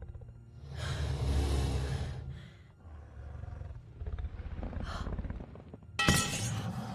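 A growling roar about a second in, then a sudden loud hit near the end.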